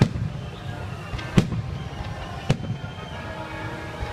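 Fireworks salute: three sharp booms of shells bursting, a second or so apart, over a steady low rumble from the display.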